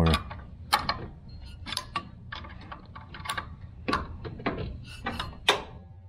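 Irregular metallic clicks and clinks, a few a second, of a wrench and metal parts being worked while a blower motor is fastened into a unit ventilator.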